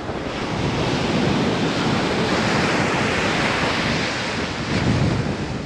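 Ocean surf washing on a beach, with wind buffeting the microphone in a steady rushing noise.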